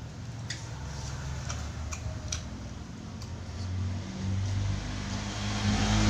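A person chewing food close to the microphone, with a few sharp clicks from the mouth and food, over a steady low hum that grows louder near the end.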